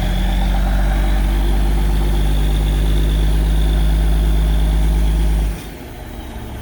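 Heavy vehicle engine running steadily at low revs, loud and close, cutting off suddenly about five and a half seconds in.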